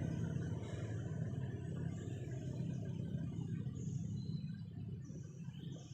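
Low, steady engine sound of a motor vehicle going by, fading away near the end.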